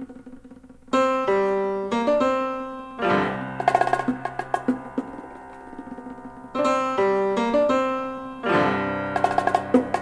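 Recorded instrumental music for pianos and percussion. Piano chords come in about a second in, with drums and percussion behind them, and the phrase repeats about two thirds of the way through.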